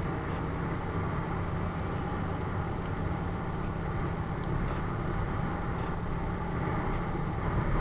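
Motorcycle engine running steadily while riding along a road, under a constant rush of road noise.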